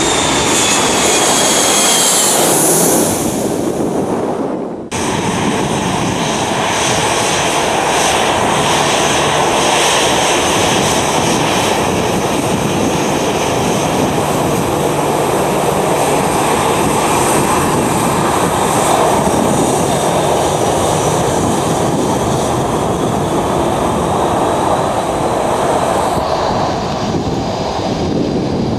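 Jet airliner engines at close range. A high whine falls in pitch over the first few seconds, then after a sudden cut comes a long, steady, loud engine noise with a high whine on top that stops a couple of seconds before the end.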